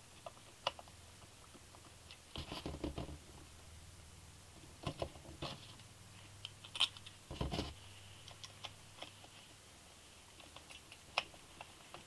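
Light scattered clicks, taps and rattles of hand work on a slide carburetor: a screwdriver turning a screw into the carb's top cap while the cap, cable and tools are handled on a cardboard-covered bench, in several short clusters.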